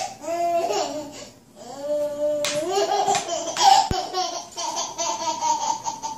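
A baby laughing in repeated bursts, with a longer drawn-out squeal about two seconds in.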